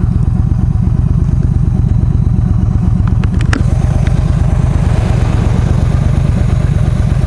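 Yamaha V Star 1300's V-twin engine idling at a standstill, a steady even pulse, with a few light clicks about three seconds in.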